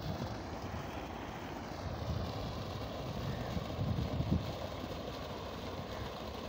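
Water from an electric irrigation tube well gushing out of its outlet pipe and splashing into the pool below: a steady rushing noise.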